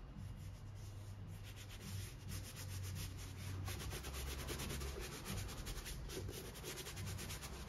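A gloved hand rubbing quickly over a leather boot upper, working in leather cream, in fast even strokes, several a second. The strokes begin about a second and a half in.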